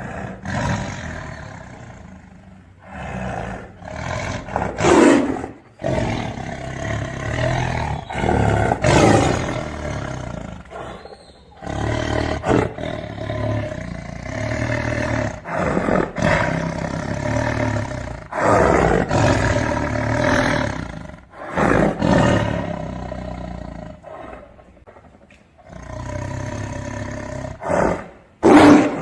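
Tiger roaring in a series of long calls with short pauses between them, the loudest one near the end.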